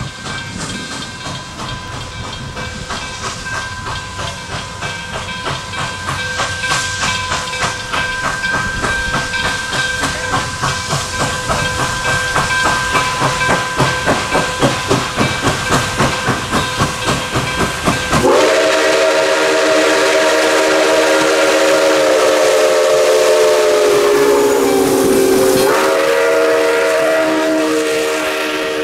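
Nickel Plate Road 765, a 2-8-4 Berkshire steam locomotive, approaching with its exhaust chuffing about three beats a second and growing louder. About eighteen seconds in, its multi-note steam whistle sounds and is held on, the chord sagging in pitch as the locomotive passes and then stepping back up near the end.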